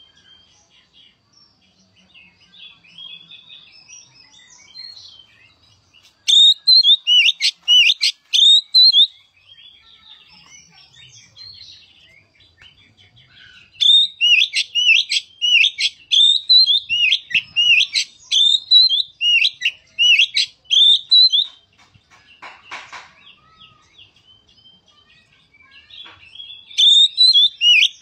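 Oriental magpie-robin (kacer) singing loud bursts of repeated whistled phrases in the style of a sooty-headed bulbul (kutilang), about two notes a second, with quieter twittering between the bursts. A short harsh noise falls in a pause about three-quarters of the way through.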